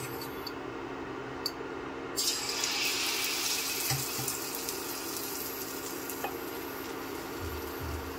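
Test drops of beetroot malpua batter hitting hot oil about two seconds in and sizzling, the hiss loudest at first and then slowly easing. The sizzle is the check that the oil is hot enough for frying.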